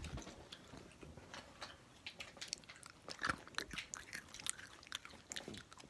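Faint, irregular chewing and mouth clicks of someone eating candy.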